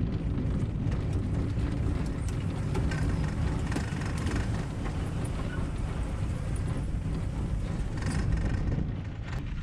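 Steady low rumble of a small aluminium boat's outboard motor running as the boat moves along slowly.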